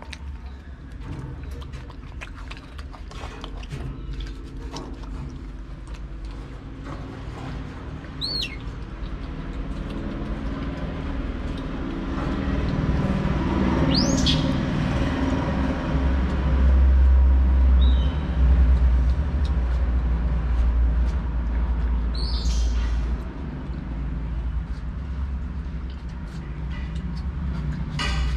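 A vehicle engine running nearby, its low rumble swelling louder through the middle and easing off after about twenty-three seconds. A few short high chirps and scattered faint clicks sit over it.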